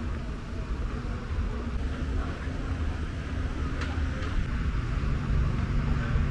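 Road traffic noise: a steady low rumble of vehicles with an engine hum that grows louder in the second half as a vehicle passes close by, and a few faint clicks.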